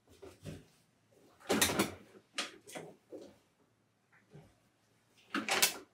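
Clothes rustling and swishing as they are dropped and pushed into a top-loading washing machine drum, in several short bursts, the loudest about a second and a half in and near the end.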